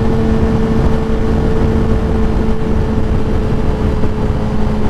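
Kawasaki ZX-10R inline-four with a Graves race exhaust cruising at a steady freeway speed: a constant engine drone that holds one pitch, under heavy wind rush on the microphone.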